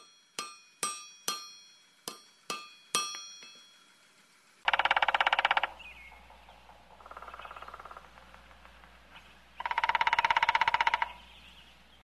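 A hammer striking a ringing anvil, about seven blows, each leaving a metallic ring. It is followed by three bursts of a fast buzzing rattle, the first and last loud and the middle one quieter.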